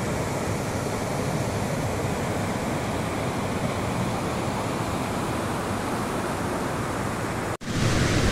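Stream rushing over a low weir, a steady wash of white water that cuts off abruptly near the end.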